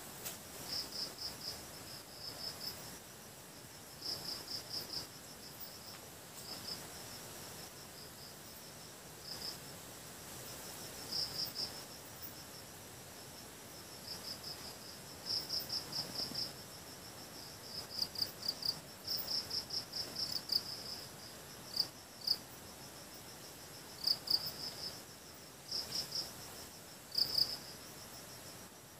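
Insects chirping in short, irregular bursts of quick pulses, with a faint steady high trill behind them.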